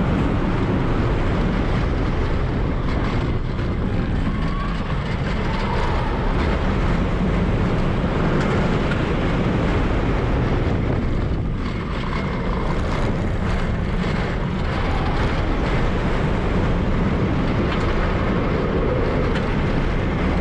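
Steel Curtain roller coaster recorded from the ride: a steady, loud rumble of the coaster train running on its track.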